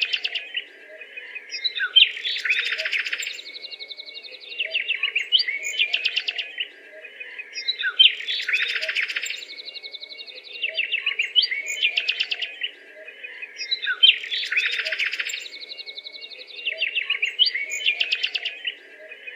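Songbirds chirping and twittering in a busy chorus, the same stretch of calls repeating about every six seconds, over a faint steady hum.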